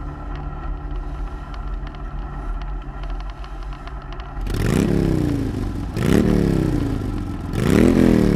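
Polaris RZR 570 side-by-side's single-cylinder engine running at a steady speed, then revving up and easing back three times in the second half.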